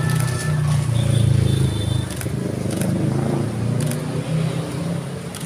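Road traffic: motorcycles and cars passing close by, with a steady low drone of engines and tyres and a few faint clicks.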